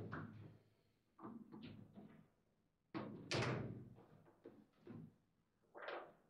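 Table football being played: quick knocks and clacks as the figures on the rods strike the ball and the rods bang against the table, in short flurries with a louder cluster about three seconds in.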